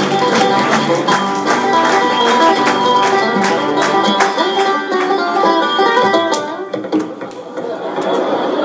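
Fast-picked bluegrass banjo music. The picking thins out and drops in loudness about six seconds in, then picks back up with a rising run of notes near the end.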